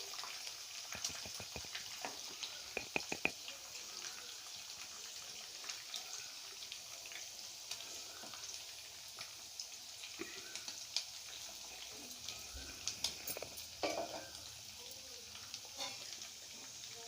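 Pre-boiled chicken pieces shallow-frying in hot oil over a low flame: a steady faint sizzle with scattered crackles and pops, a cluster of them about a second in and another near the end.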